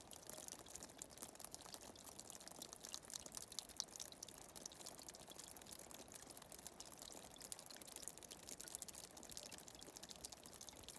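Water trickling and dripping, faint and steady, with many fine drips.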